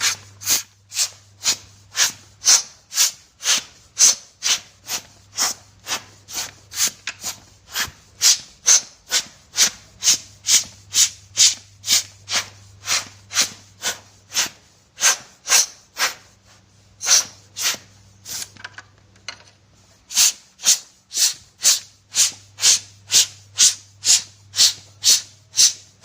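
Cleaning strokes on a speaker's cooling fan: short hissing sounds repeated about twice a second, fainter for a moment about three-quarters of the way through, over a faint low hum.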